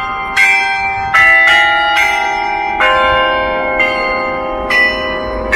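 Church bells ringing: a run of strikes at different pitches, roughly one a second, each tone ringing on under the next.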